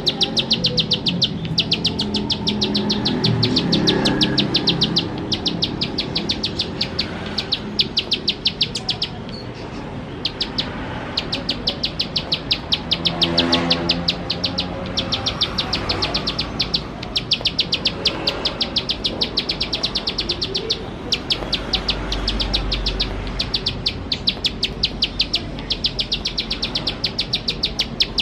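Plain prinia (ciblek sawah) singing its rapid-fire 'nembak' song: runs of sharp clicking notes, about ten a second, each run lasting a few seconds with short pauses between.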